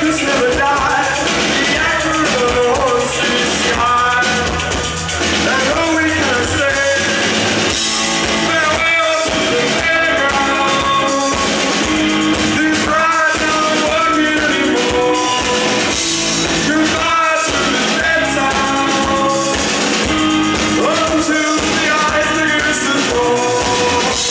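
Rock band playing live: a male lead singer over electric guitars, bass and a drum kit.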